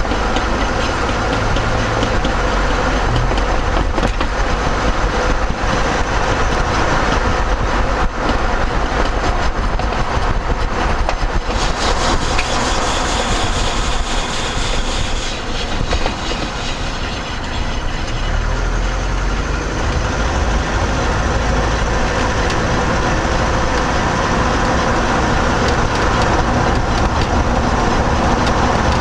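Vehicle driving, with steady road and tyre noise and a low rumble, and knocks now and then from a tyre.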